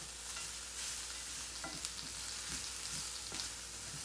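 Shredded cabbage mix sizzling in olive oil in a stainless steel frying pan as it is stirred, with a steady hiss and a few short scrapes of the utensil through the vegetables against the pan.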